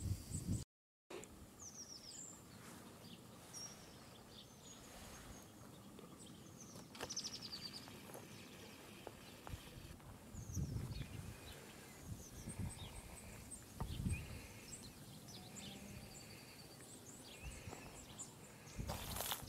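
Faint birdsong in open oak woodland: several small birds giving short, high chirps and quick twittering calls, scattered irregularly, with a few soft low thuds now and then.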